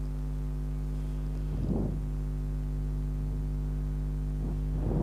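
Steady electrical hum, with two brief soft rustles, one about two seconds in and one near the end.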